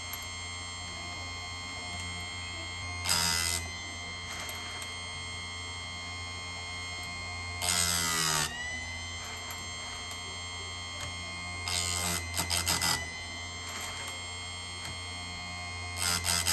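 Electric bench chainsaw-chain grinder running with a steady motor hum and whine, its abrasive wheel lowered onto the chain's cutting teeth four times, each a loud grinding rasp of under a second to about a second. The later touches stutter as several quick rasps; each one sharpens a cutter, grinding metal off the tooth.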